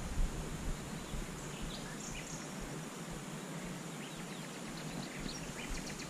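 Quiet open-air ambience with a steady faint hiss and a few short, scattered bird chirps.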